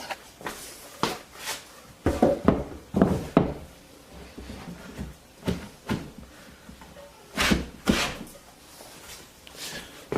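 Irregular wooden knocks and clunks of a homemade drill press's birch-plywood base and bolts being handled and fitted onto a wall shelf.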